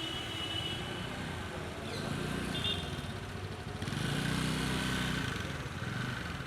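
A motor vehicle's engine running, getting louder for a couple of seconds from about four seconds in.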